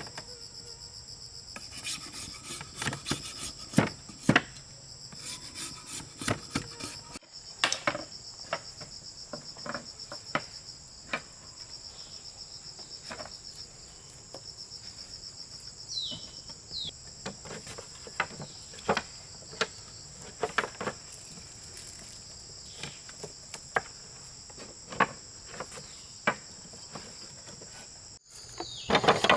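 Steady high-pitched drone of rainforest insects, with irregular knocks and taps scattered throughout.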